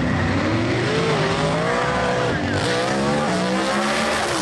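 Two drag-racing cars launching side by side at full throttle, the engines running at high revs with the pitch climbing. The pitch drops sharply at a gear shift about two and a half seconds in, then climbs again and drops at a second shift near the end.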